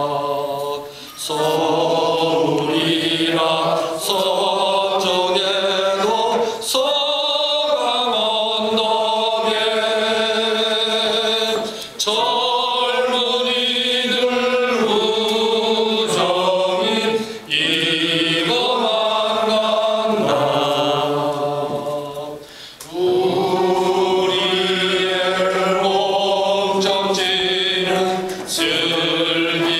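A roomful of people singing a university school song together. Long held notes come in phrases, with brief breaks between them.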